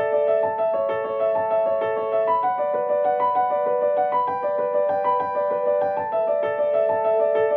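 Background music: a piano-like keyboard melody of steady, evenly paced notes.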